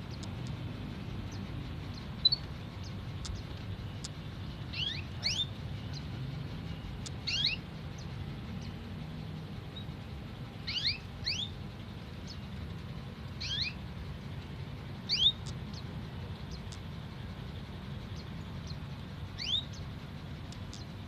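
Canary giving short, quickly rising chirps, often two in quick succession, repeated every few seconds over a steady low hum.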